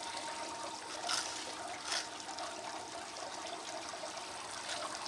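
Water spraying from a spray bar onto a small model gold shaker table and running across its riffled deck: a steady splashing trickle. Two faint clicks about one and two seconds in.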